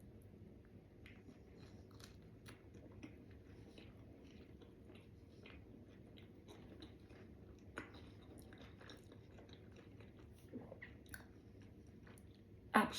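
A person biting into and chewing a gravy-dipped fried-chicken Zinger wrap close to the microphone: faint, irregular small clicks and mouth sounds.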